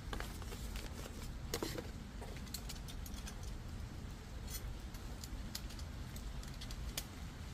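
Sheet of paper being folded and handled, with scattered crinkles and small clicks, over a steady low background rumble.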